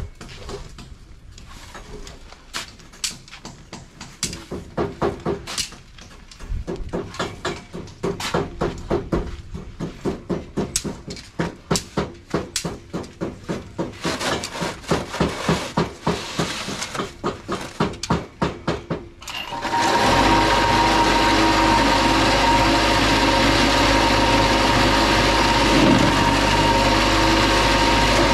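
A rapid series of knocks, about two or three a second, then, about 19 seconds in, the motor of a concrete hollow-block making machine starts and runs at a loud, steady hum.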